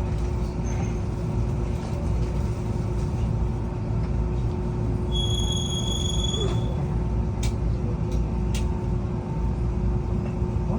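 Steady hum and low rumble of an Enoden electric train's onboard equipment while it stands at a station waiting to depart. About five seconds in, a high steady tone sounds for about a second and a half, and two short ticks follow.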